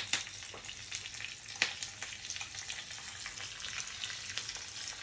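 A tadka of mustard seeds, white sesame seeds and chopped green chillies sizzling in hot oil in a small pan, a steady hiss with scattered pops and crackles as the seeds splutter.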